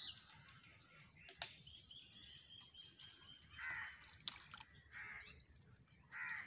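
Quiet ambience with three faint, short bird calls in the second half, plus a couple of light clicks.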